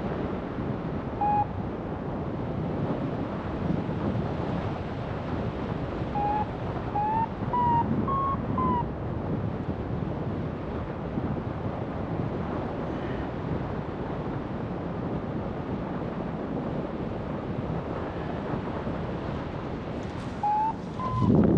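Airflow rushing over the microphone of a paraglider pilot in flight, with a variometer's short beeps: one about a second in, a run of about six stepping up in pitch a third of the way through, and two more near the end. The rising beeps signal climbing in a thermal.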